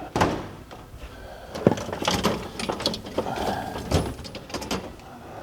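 Jumper-cable clamps being handled and clipped onto battery terminals: scattered metal clicks and rattles with a few sharper knocks.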